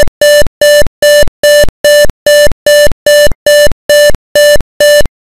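A simulated buzzer in a PIC microcontroller simulator sounds a loud, buzzy electronic tone in twelve even beeps, about two a second, which stop shortly before the end. This is the alarm of the PIC16F887 voltmeter-ammeter program: the current has gone above its preset maximum.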